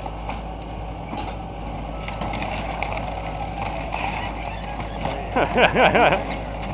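John Deere backhoe running steadily while it pulls apart an old wooden house, with a few sharp knocks in the first couple of seconds. Near the end comes a short, louder sound of wavering pitch.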